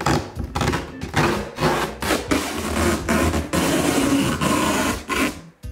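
Plastic packing tape being peeled off a cardboard box: a loud, rasping rip that goes on in several pulls and cuts off suddenly just before the end.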